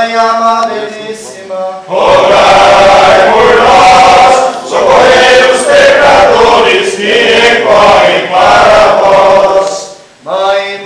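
A group of men singing a Catholic litany in Portuguese, in a chant-like style with long held notes. The phrases break briefly about two seconds in and again near the end.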